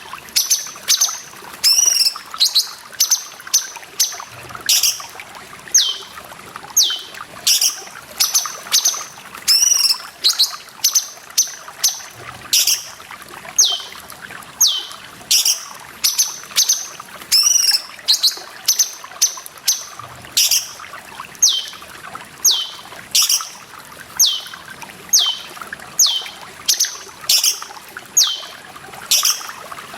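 Cucak cungkok calling over and over, sharp high notes that drop in pitch, about one or two a second, over the steady trickle of running water.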